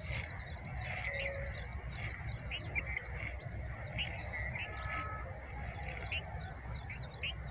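Small birds chirping again and again in short calls, over a steady low rumble.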